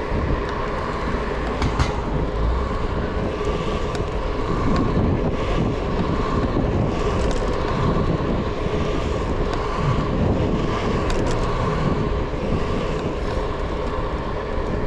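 Electric kick scooter ridden at speed on a paved path: a steady rolling rumble of the small wheels with a faint steady whine, and now and then a sharp click or rattle over bumps.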